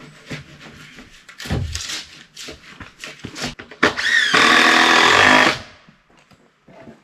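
Power drill running in one steady whine for about a second and a half, after a run of handling knocks and clicks.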